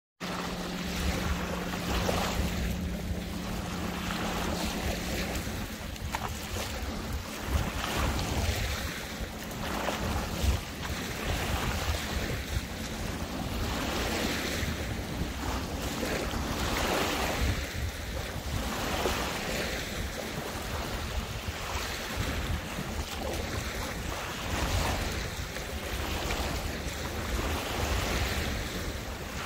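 Small waves of the Intracoastal Waterway lapping and washing in every second or two, with wind buffeting the microphone. A low steady hum sits under the water for the first five seconds.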